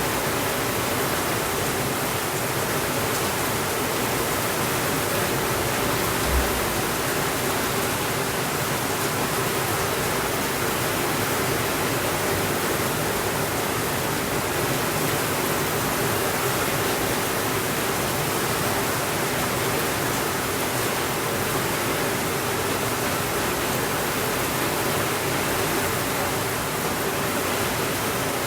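Steady heavy rainfall, an even rushing hiss, with one brief low thump about six seconds in.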